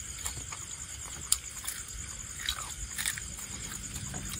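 A person chewing crunchy cooked mole crickets, with scattered crisp crunches and one sharp crack just over a second in.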